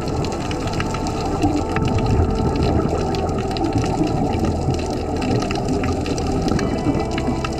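Underwater sound of scuba divers breathing out through their regulators: a steady rushing and bubbling of rising exhaust bubbles.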